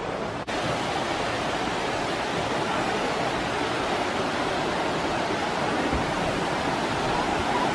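River rapids rushing: a steady, even roar of moving water over rocks, with a brief drop about half a second in.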